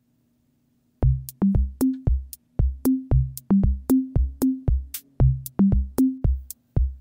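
Background music with an electronic drum-machine beat and short bass notes, starting about a second in.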